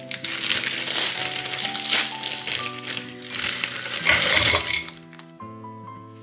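Frozen, ice-coated avocado chunks tipped from a plastic bag into a plastic blender cup, clattering and clinking against the plastic. The loudest tumble comes about four seconds in, and it stops about a second later, leaving background music.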